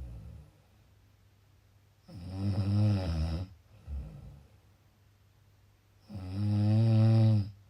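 A person snoring: two long, rattling-pitched snores about four seconds apart, each followed by a brief, softer breath sound.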